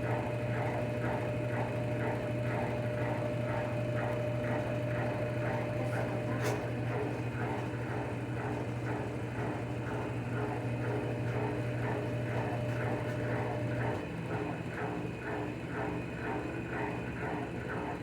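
Brastemp washing machine's water pump running with a steady hum and a rhythmic rattle a few times a second, the abnormal noise the pump is making. The hum shifts about fourteen seconds in.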